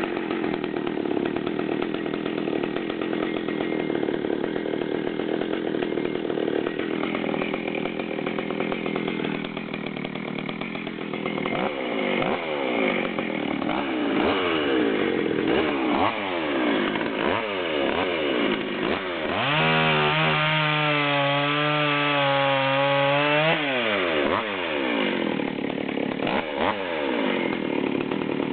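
Stihl 020 AV Super two-stroke chainsaw, fitted with a 40 mm cylinder and piston, running. It holds a steady note at first, then is revved up and down repeatedly. About two-thirds of the way through it is held at full throttle for a few seconds before dropping back.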